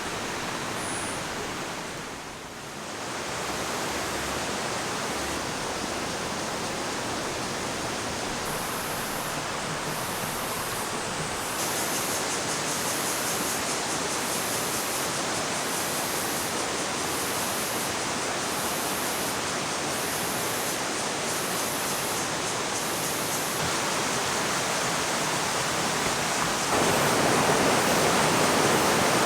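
Rushing water of a mountain stream, a steady hiss that dips briefly about two seconds in and gets louder near the end. A faint high pulsing sits on top of it through the middle stretch.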